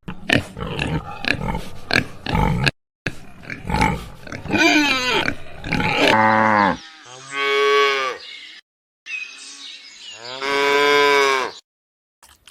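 Cattle mooing: after a few seconds of rough grunting and scuffling noises, two or three long, drawn-out moos, about halfway through and again near the end.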